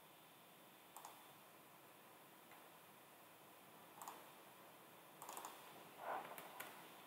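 Computer mouse clicks over faint room hiss. There are single clicks about one and four seconds in, then a quick run of clicks between about five and six and a half seconds.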